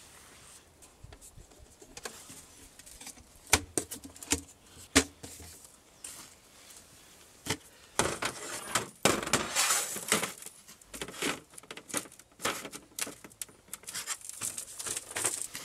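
A metal-framed folding camp table being unfolded and set upright: sharp knocks, clicks and clatter of its legs and frame, loudest in the second half, after soft fabric rustling at first.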